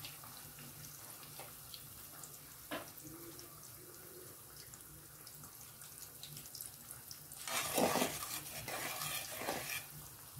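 Thin raw-banana slices deep-frying in hot oil in an aluminium kadai, a steady bubbling sizzle: the first, soft-frying stage of banana chips. A single knock comes about a quarter of the way in, and the frying gets louder in two bursts late on as a skimmer stirs the slices through the oil.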